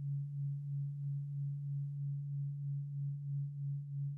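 A low, steady electronic drone tone, pulsing evenly in slow swells a few times a second.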